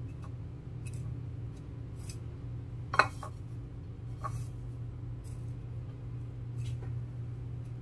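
Wooden chopsticks clicking and scraping against a ceramic plate while onion rings are turned in breadcrumbs: a handful of scattered light clicks, the loudest about three seconds in. A steady low hum runs underneath.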